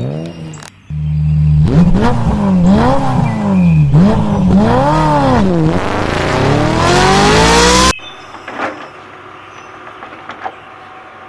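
A motor revving, its pitch swooping up and down several times, then climbing steeply to a high pitch before cutting off abruptly about eight seconds in. After it, a much quieter low rumble with a few light clicks.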